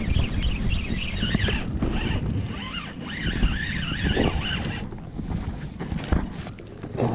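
Wind buffeting the microphone with a steady low rumble, over a high wavering whine that stops about five seconds in.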